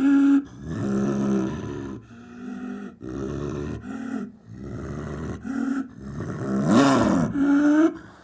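A big cat's roars and growls: a run of calls about a second apart, some rising and falling in pitch, with the loudest roar near the end.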